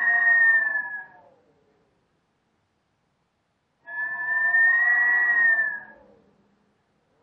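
Howling wind: a whistling, pitched howl that fades away in the first second or so, then a gap of near silence, then a second gust of howling about halfway through that sags in pitch as it dies out.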